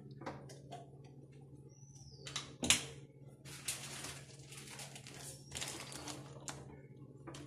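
Faint crackling and sizzling of ghee melting in a hot nonstick kadai, scattered clicks with a sharper one about two and a half seconds in, over a steady low hum. A short falling bird whistle about two seconds in.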